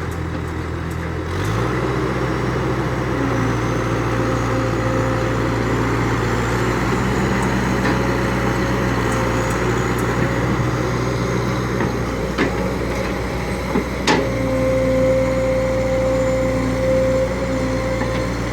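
Radio-controlled model excavator running steadily with an engine-like hum that steps up in pitch about a second and a half in, a thin whine over it, and a couple of sharp clicks near the end.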